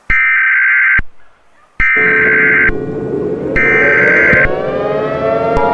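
Emergency Alert System SAME header: three raspy bursts of digital data tones, each about a second long. From about two seconds in, a layered tone slowly rises in pitch beneath them, and near the end the steady two-tone EAS attention signal begins.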